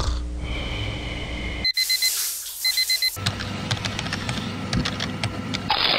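A digital alarm clock beeping in two quick groups of four beeps, followed by a run of rapid key clicks of typing.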